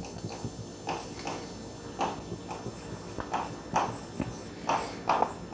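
Marker pen writing on a whiteboard: about eight short, scratchy strokes, one after another, as letters are written.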